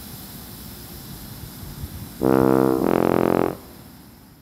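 Lithium metal fizzing in a tank of water with a steady hiss. About two seconds in, it is covered by a loud two-note brass 'womp womp' sound effect: two flat, held notes back to back, marking a disappointing reaction.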